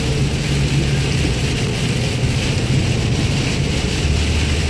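Steady engine and wet-road tyre noise heard from inside a moving vehicle, with rain striking the windshield.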